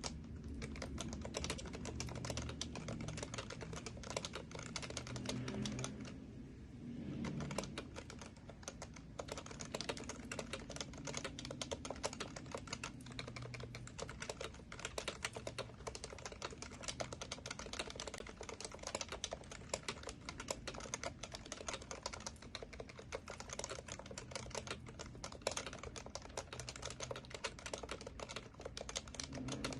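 Fast, continuous typing on an HHKB Professional Classic keyboard with Topre tactile switches, a dense run of keystrokes with a short pause about six seconds in.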